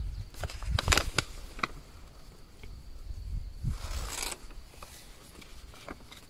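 Paper crackling and rustling as a letter is handled and unfolded, in sharp clicks and crinkles mostly in the first two seconds, over a low rumble of wind on the microphone. A short puff of breath comes about four seconds in.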